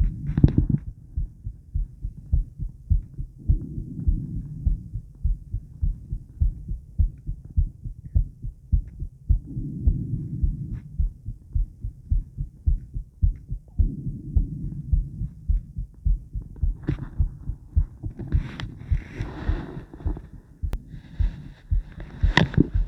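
A woman's heartbeat: a steady run of short, low thumps. Every few seconds a low swell of noise rises and falls under it, and from about two-thirds of the way through a rougher scraping noise comes and goes.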